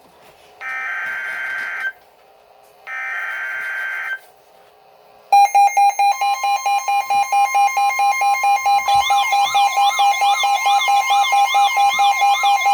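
NOAA weather radio receiving a new emergency alert. It plays two buzzy digital data bursts of the alert header, each over a second long with a short gap between. About five seconds in, the radio's alarm starts: a loud beep pulsing about four times a second with a steady high tone under it, and a warbling tone joins a little past halfway through.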